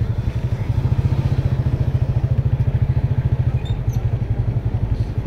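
Motorbike engine running steadily at low road speed, close by, a fast, even putter.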